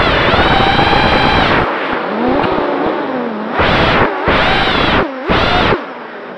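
Emax 200 FPV racing quadcopter's Emax RS2205 2300kV brushless motors and propellers whining at high throttle, then dropping to a lower wavering tone. About halfway through come three short throttle punches, each well under a second, and the whine falls away near the end.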